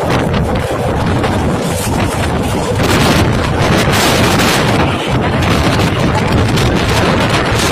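Strong storm wind buffeting a phone microphone: a loud, steady rush of noise with no break.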